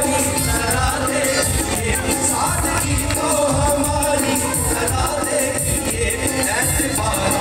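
Live band performing a Hindi song, with a male voice singing over acoustic guitar, keyboard and hand-drum percussion, played loud and steady through the stage speakers.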